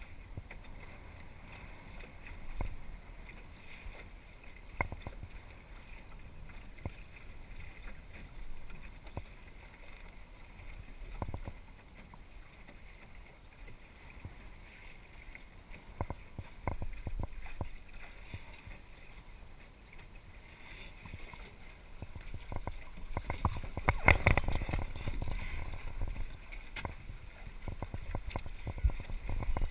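Water sloshing and slapping against the hull of a small sailing dinghy under way, with wind on the microphone and scattered light knocks. The sloshing and wind swell louder a little over two-thirds of the way through.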